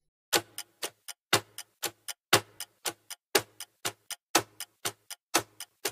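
Clock-style ticking of a quiz countdown timer sound effect, about four ticks a second with a louder tick once each second, counting down the time to answer.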